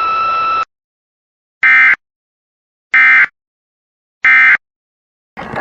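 Emergency Alert System end-of-message tones: three short, identical bursts of SAME data, each about a third of a second long and spaced about 1.3 seconds apart, marking the end of the alert. Before them a steady hum cuts off shortly after the start, and radio static comes in near the end.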